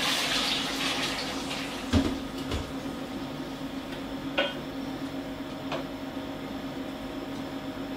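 Crushed tomatoes hissing as they hit a hot stainless-steel pan, the hiss fading over the first second or two, then a wooden spoon stirring them and knocking against the pan a few times. A steady low hum runs underneath.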